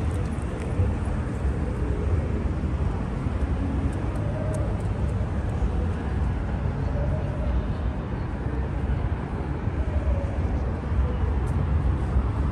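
Steady low rumble of urban ambience, like passing traffic, with faint distant voices of passers-by.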